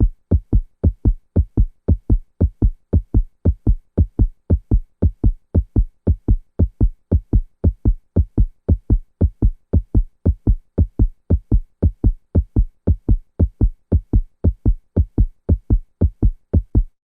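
Heartbeat sound effect: a fast, steady run of low, muffled thumps, about two and a half a second, that stops just before the end.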